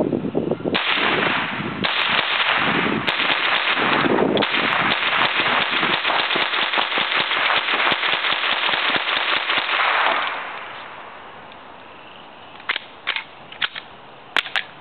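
AR-15 with a dedicated .22LR upper firing cheap bulk .22LR ammunition in rapid strings of shots, broken by a few brief pauses, until about ten seconds in. After the firing stops, a few sharp clicks come from the rifle as it is handled.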